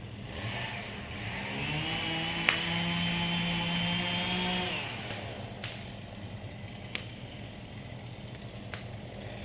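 Two-stroke chainsaw idling, revved up to a steady high pitch for about three seconds, then dropping back to idle. A few sharp clicks or snaps are heard, the loudest during the rev.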